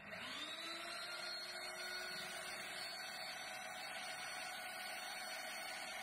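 Small benchtop drill press motor spinning up to speed over about the first second, then running steadily with a whine, the bit turning free and not yet cutting.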